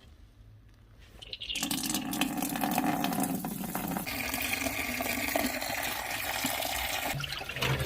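Dirty fluid draining out of a parts washer in a steady gush. It starts about a second and a half in and cuts off shortly before the end.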